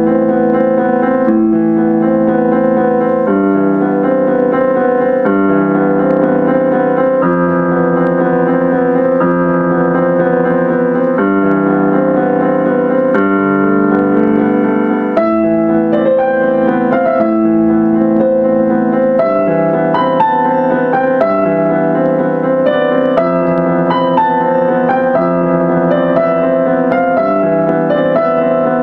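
Digital piano playing a melody over sustained chords that change about every two seconds; from about halfway through, the melody gets busier with more notes struck higher up the keyboard.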